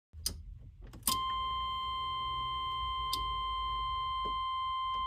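A few clicks, then about a second in another click sets off a steady, high electronic beep tone that holds without a break, over a low background rumble.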